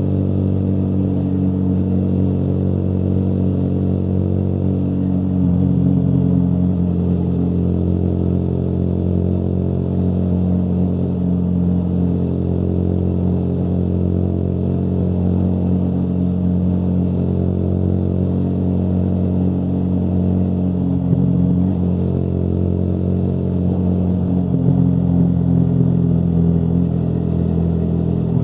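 Motorcycle engine running steadily under way, its note shifting in pitch a few times as the throttle and gears change.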